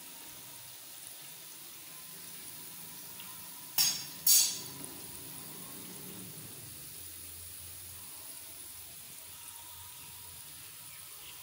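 Sliced okra frying in oil in a shallow metal pan: a steady sizzle, near the end of frying. About four seconds in come two sharp clanks of the metal slotted spoon against the pan.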